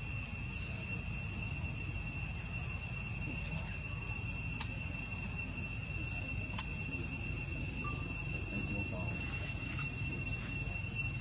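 Steady, high-pitched insect drone: one constant whine with a fainter note above it, over a low background rumble. Two short, sharp clicks come in the middle.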